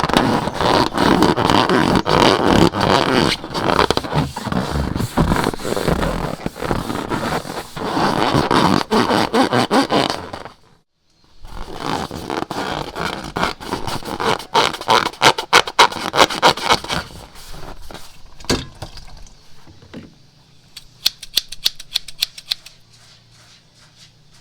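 Sticky slime being mixed and squished by hand, with dense wet crackling and clicking. It stops for a moment about eleven seconds in, then comes back as sharper clicks and fades to sparse, fainter clicks over the last few seconds.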